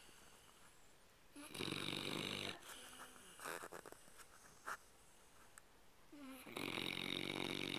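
Sleeping dog snoring: two snores about five seconds apart, each lasting about a second.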